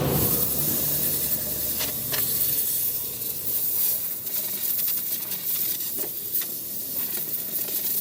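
Steady hiss of compressed air, with a few light clicks about two seconds in and again around six seconds in.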